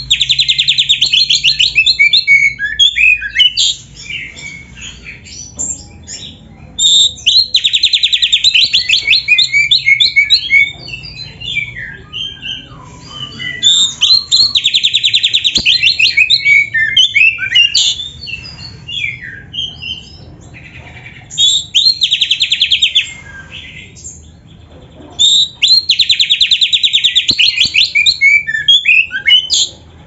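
Oriental magpie-robin singing loudly, with a song filled with canary-style phrases. Five long, fast trills of about three seconds each alternate with varied short whistles and chirps.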